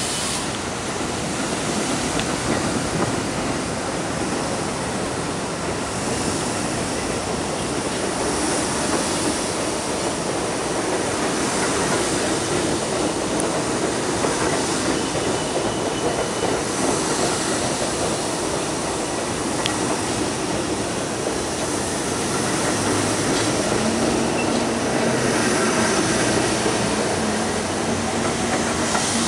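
R32 stainless-steel subway train passing through a station at speed without stopping: steady rumble and wheel-on-rail noise with clickety-clack over the rail joints, swelling every few seconds as the cars go by. A low steady hum comes in near the end.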